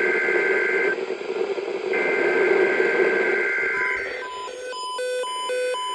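NOAA Weather Radio SAME data header that opens an emergency alert: a harsh two-tone digital buzz over radio hiss, sent in repeated bursts, one ending just under a second in and the next lasting about two seconds. About four seconds in, the bursts give way to a quick run of short electronic beeps that jump between different pitches.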